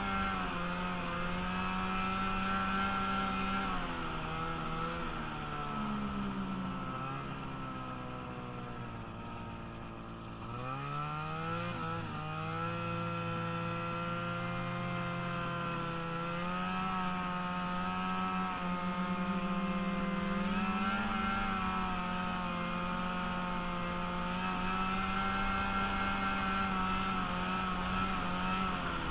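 Engine of a freshly rebuilt ride-on vehicle running under way: its pitch falls as it slows from about 4 to 10 seconds in, climbs sharply as it accelerates at about 10 seconds, then holds a steady cruise with small rises and falls.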